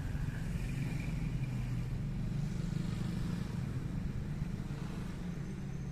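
Steady low rumble of motor traffic, with no single event standing out.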